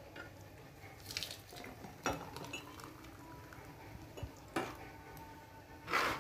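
Blender jar and glass mugs knocking and clinking on a plastic tray while a shake is poured: a few separate knocks, the loudest near the end.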